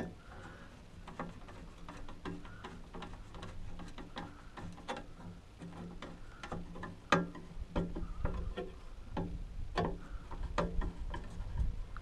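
Screwdriver driving a screw through a 3D-printed plastic bracket into a UTV's roof frame: a string of irregular small clicks and ticks, several a second, over a faint steady hum.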